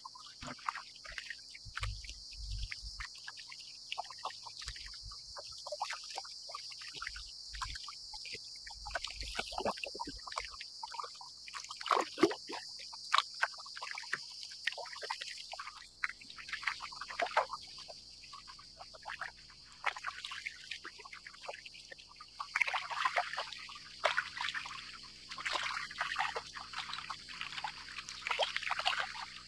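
Water lapping and splashing against a plastic kayak's hull as it moves through light chop, in irregular small splashes that grow busier in the last third. Behind it is a steady high-pitched chorus of cicadas.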